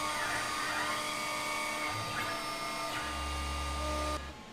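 CNC router spindle spinning a tapered ballnose bit as it carves wood: a steady high whine over the cutting noise. A low hum joins about three seconds in, and the sound cuts off suddenly near the end.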